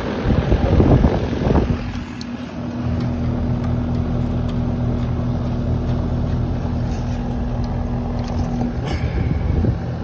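Loud irregular handling noise for the first second or two, then a steady machine hum with a constant low tone that cuts off near the end.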